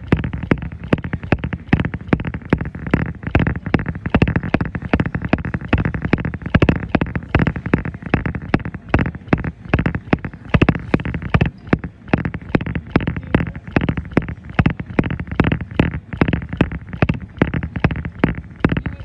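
Running feet landing on a treadmill belt at a steady jogging pace, about three footfalls a second, over a low steady drone.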